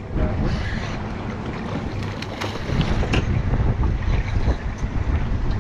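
Wind buffeting the microphone over water moving against a boat's hull, with a rough low rumble and a few sharp clicks.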